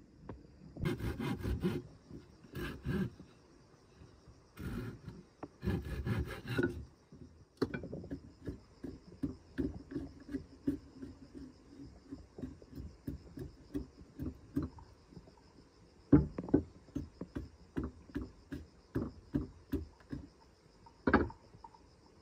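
A blade scraping and shaving wood in short, even strokes, a few a second, with two sharp knocks later on. In the first few seconds there are several longer bursts of harsh scraping.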